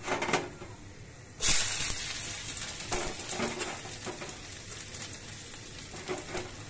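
Sliced garlic tipped into hot oil in a karahi for tempering: a sudden loud sizzle about a second and a half in, going on as a steady crackling sizzle.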